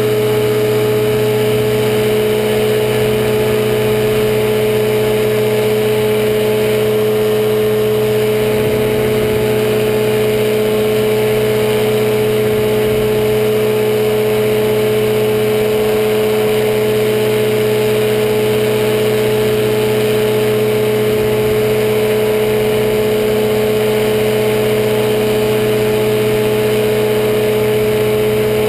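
Powered parachute's engine and propeller running steadily through the takeoff and climb, a loud, even note that holds without a break.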